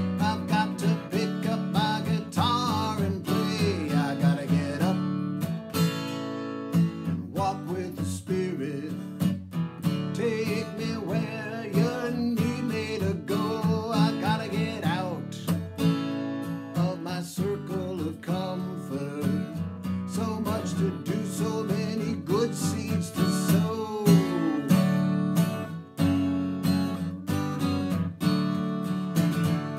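Acoustic guitar strummed steadily, with a man's singing voice coming in and out over it.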